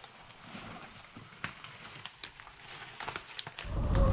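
Footsteps on leaf litter with scattered sharp snaps and crackles of dry twigs and leaves underfoot. Near the end a loud low rumbling noise rises and drowns them out.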